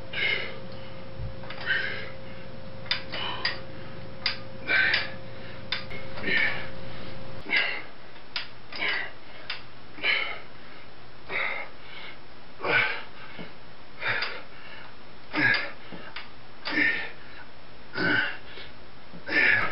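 A man breathing hard with exertion while curling a barbell: short, forceful breaths repeating about every second and a half, with a few faint clicks.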